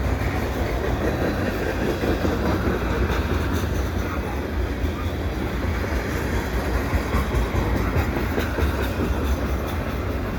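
Freight cars of a long mixed freight train rolling past on the rails: a steady, heavy rumble of steel wheels.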